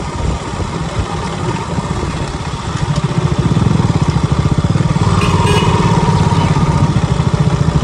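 Single-cylinder KTM RC motorcycle engine running at low revs as the bike rolls slowly, its exhaust beating in a fast even thump that grows louder about three seconds in.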